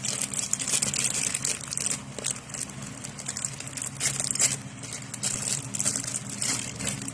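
Packaging being handled and crinkled while it is opened, an uneven run of crackles and rustles over a steady low hum.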